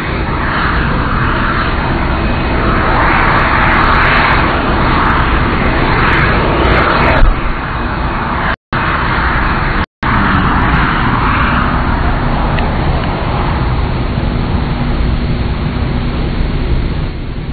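Jet engines of the Boeing 747 Shuttle Carrier Aircraft running, a steady rushing roar that swells and eases. The sound cuts out twice briefly about halfway through.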